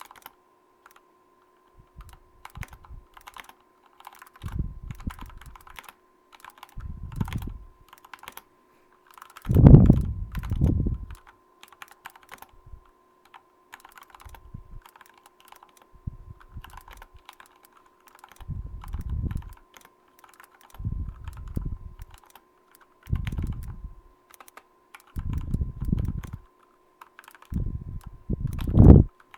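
Mechanical keyboard with lubed, retooled Cherry MX Black linear switches being typed on in short bursts: rapid keystroke clicks with deeper thuds as keys bottom out. The loudest burst comes about ten seconds in.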